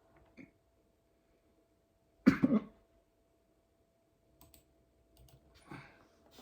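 A person hiccuping during a long, persistent bout of hiccups: one sharp, loud hiccup a little over two seconds in, and a fainter one near the end.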